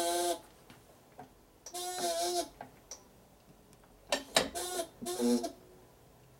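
Steel gears and shafts of a Harley-Davidson four-speed transmission clinking and ringing as the gear cluster is shifted by hand during a test fit. There are three bursts of ringing metal: one at the start, one about two seconds in, and a quick run of clanks near the end.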